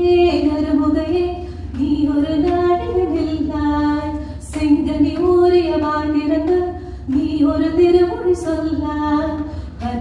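A woman singing solo and unaccompanied into a microphone, in long held phrases with short breaths between them, over a low steady hum.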